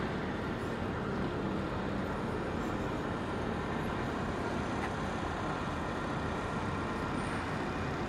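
Steady outdoor city background noise with a low rumble, without any distinct sounds standing out.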